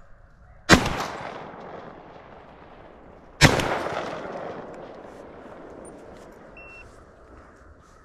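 Two shotgun shots fired a little under three seconds apart, each a sharp blast followed by a long echo that dies away over a couple of seconds.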